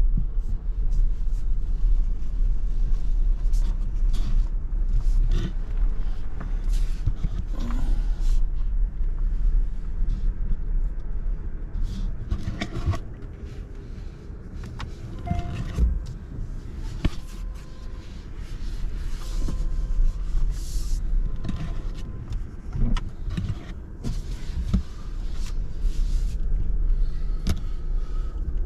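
Electric car driving: a steady low rumble of tyres on the road, with scattered knocks and clicks from bumps in the road surface.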